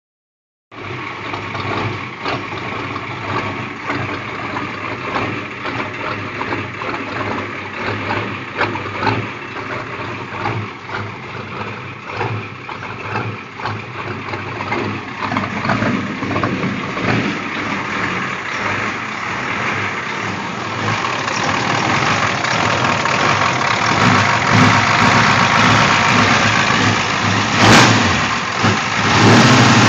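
Non-turbo International Harvester 6.9-litre IDI diesel V8 in a Scout idling roughly with an uneven diesel clatter, getting louder in the second half, with one sharp click near the end. The owner, after a glow plug and starter job, suspects a fault after the injection pump behind the rough idle and constant blue-haze smoke.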